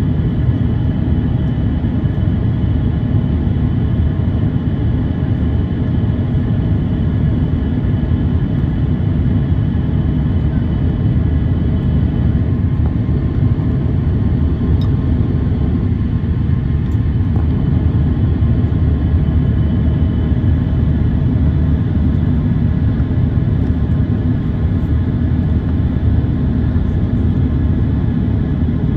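Steady in-cabin noise of an Airbus A350-900 climbing after takeoff: the low rumble of its Rolls-Royce Trent XWB engines and airflow over the fuselage, with a few faint steady whining tones above it.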